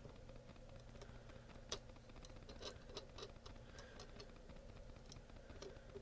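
Faint, irregular small clicks and taps of wire leads being pushed into an Arduino's pin header and a plastic breadboard, over a low steady hum.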